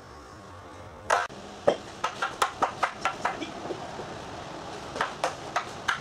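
Long staffs clacking against each other in a partner set drill: one loud crack about a second in, then a rapid run of strikes several a second, lighter for a moment in the middle and quickening again near the end.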